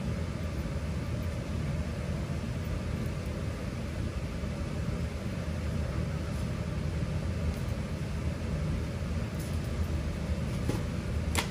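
Steady low mechanical hum in the background, with a single sharp click near the end.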